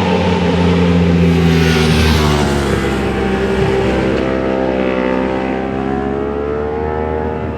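Racing motorcycles lapping a circuit corner at track speed. One bike passes close about two seconds in, and an engine note dips and then climbs again about halfway through as a bike brakes into the turn and accelerates out.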